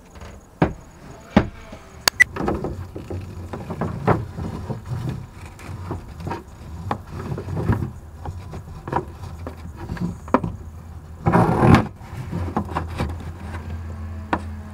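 Blue plastic washdown hose being tugged by hand through a boat compartment: irregular knocks, taps and rubbing as it drags, with a longer scraping rub lasting about a second roughly three quarters of the way through.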